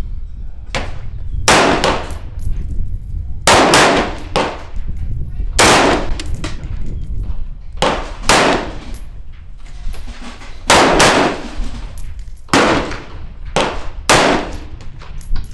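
Gunfire on an outdoor range: about eight loud shots and several fainter ones, irregularly spaced a second or two apart. Each is a sharp crack with a short echoing tail.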